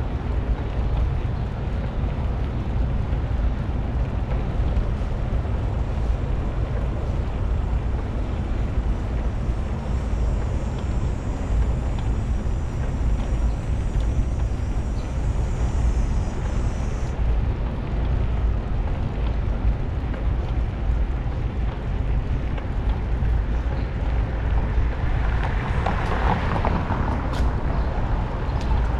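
Wind buffeting the microphone of a camera on a moving bicycle, a steady low rumble over a haze of road and street noise. A brighter rush of noise builds near the end.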